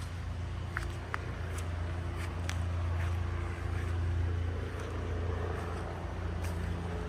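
A steady low engine hum that swells a little midway, with a few light clicks scattered through it.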